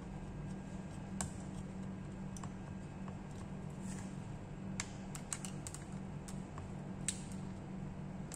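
Scattered sharp plastic clicks and small taps from hands and tools working on a laptop's case and internals during disassembly, irregular and clustered about halfway through, over a steady low hum.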